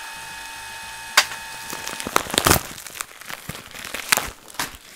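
A steady electronic tone, an edited-in fast-forward effect, holds for about the first two seconds with a sharp click partway through; then plastic packaging wrap crinkles and crackles irregularly as it is pulled open by hand.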